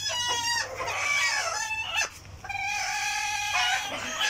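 Chickens calling, with a rooster crowing: several short calls in the first two seconds, then one long held crowing note from about two and a half seconds in.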